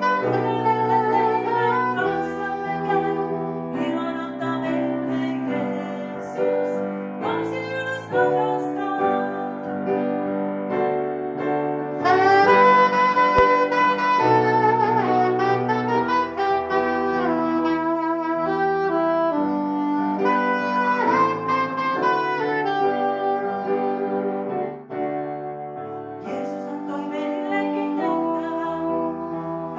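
Soprano saxophone playing a slow melody over sustained keyboard chords, growing brighter and louder about twelve seconds in.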